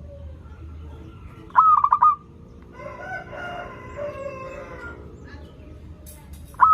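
Zebra dove (perkutut) cooing one quick, loud phrase of rapid trilled notes about a second and a half in. A rooster crows more quietly in the background from about three seconds in for around two seconds.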